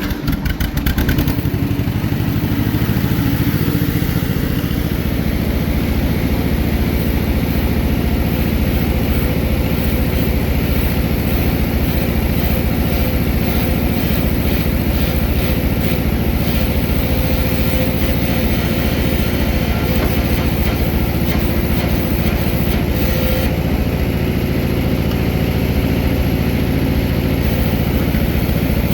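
1949 John Deere Model M tractor's two-cylinder engine running steadily in neutral, with an even putter.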